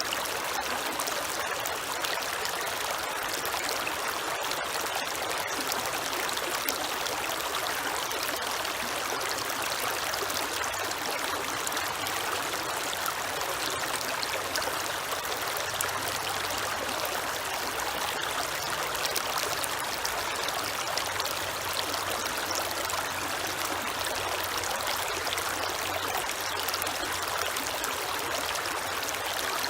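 A creek's flowing water, running steadily with a constant rushing and trickling, with a faint low hum underneath in the second half.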